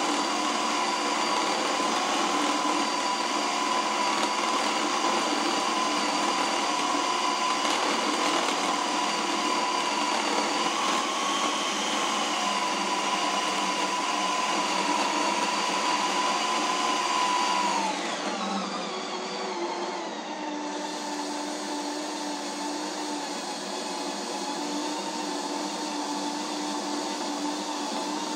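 Ninja Creami ice cream maker's motor steadily whining as it spins the blade through a frozen pint on the ice cream program. About two-thirds of the way through, the whine drops in pitch and the machine settles to a quieter, lower hum.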